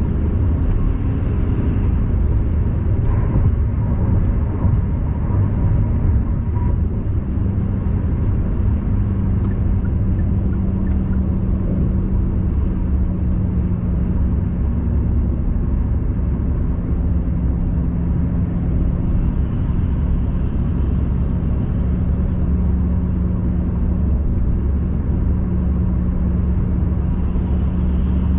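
Car driving at highway speed, heard from inside the cabin: a steady low rumble of tyre and engine noise with a constant low hum.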